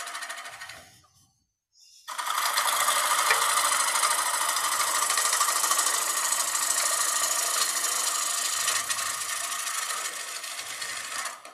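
Gouge cutting into green cedar spinning on a wood lathe, a steady hiss of shavings peeling off as the inside of a bowl is hollowed. The cut breaks off for about a second near the start, then runs on steadily.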